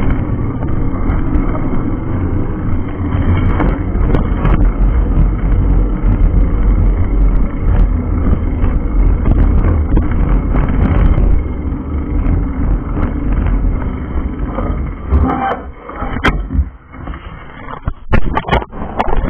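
Loud, steady rumble of road traffic and wind on an action camera's small microphone while moving along a busy street. It eases and breaks up about three-quarters of the way in, with a few sharp knocks near the end.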